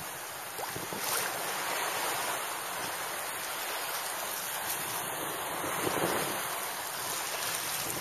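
Surf washing onto the beach in a steady rush, with wind buffeting the microphone.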